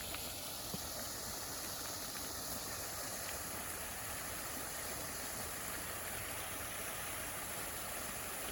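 Small garden waterfall: water pouring and splashing steadily.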